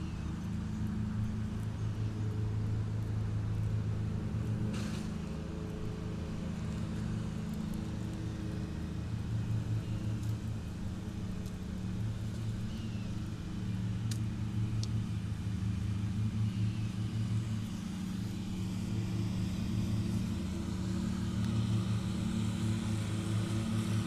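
Riding lawn mower engines running steadily while cutting grass, the hum swelling and easing every several seconds as a mower approaches and moves away.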